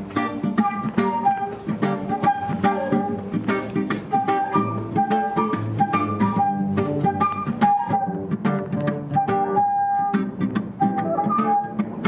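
Instrumental intro of an acoustic reggae song: acoustic guitar plucking a steady rhythm while a melody of held notes plays over it.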